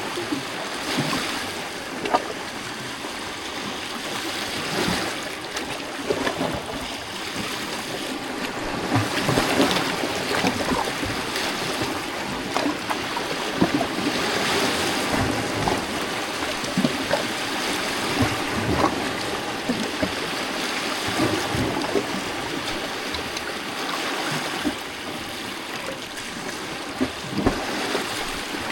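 Small lake waves lapping and splashing against rocks, a continuous wash broken by frequent little splashes and gentle swells every few seconds.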